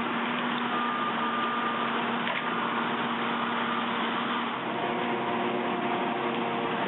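Skid steer running with its hydraulic brush cutter attachment, a loud, steady machine noise with a hum; the pitch of the hum shifts about five seconds in.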